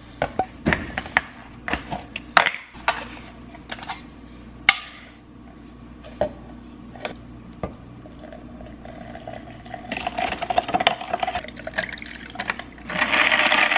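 A metal spoon clicks and taps against a tin and a plastic tumbler while scooping powdered matcha latte mix. From about ten seconds in, liquid is poured over ice into the plastic tumbler, a rushing pour that grows louder near the end.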